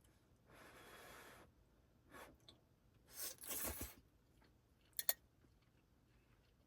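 Faint handling sounds: a soft rustle, a brief scrape, a louder rustle lasting under a second, then two sharp clicks in quick succession.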